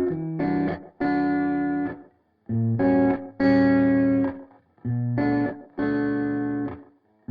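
Background music without singing: a guitar plays a series of held chords, each ringing for about a second and then stopping, with short gaps between them.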